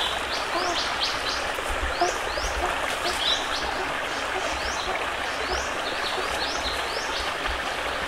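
Steady rush of a forest stream, with short high rising chirps repeating about twice a second and a few faint low calls.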